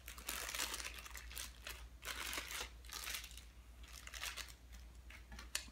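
Small plastic zip-lock bag crinkling in the hands as it is handled, in irregular rustles, with a sharp click near the end.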